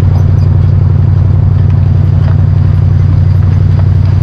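An old car's engine running at a steady, unchanging pace as it climbs slowly up a rough dirt trail, loud on a camera mounted outside on the body, with light scattered clatter.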